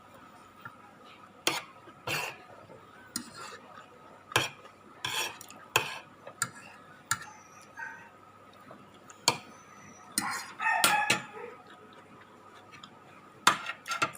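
Cutlery clinking and scraping on a plate during eating, in scattered irregular clinks, over a faint steady hum.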